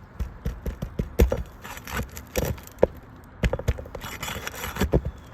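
Steel flat bar prying and scraping under asphalt roof shingles to work roofing nails loose: irregular sharp clicks and knocks mixed with gritty scraping.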